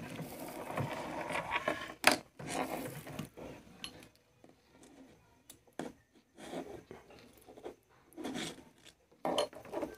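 Light scraping and rubbing of a hot soldering iron's tip and the wires against the terminals of a soldering iron's heating element, with a few sharp clicks.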